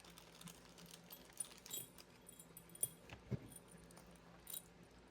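Faint, scattered clicks and light handling noises as a strand of chrysoprase beads is picked up and shown.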